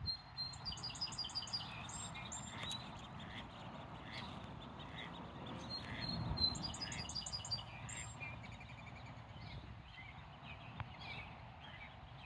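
High-pitched bird chirps in quick runs of repeated notes: one burst about half a second in, another around six seconds in, then fainter scattered chirps, over a steady outdoor background hiss.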